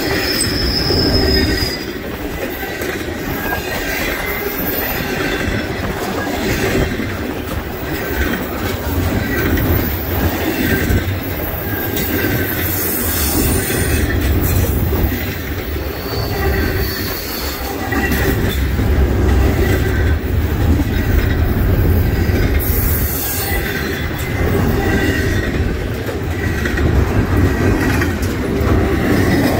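Doublestack container train's well cars rolling past close by: a steady rumble of steel wheels on rail, with a brief high wheel squeal about a second in.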